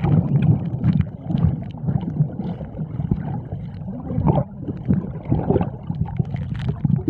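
Muffled underwater sound recorded with the camera below the surface: an uneven, pulsing low rumble and gurgling of moving water, with scattered faint clicks.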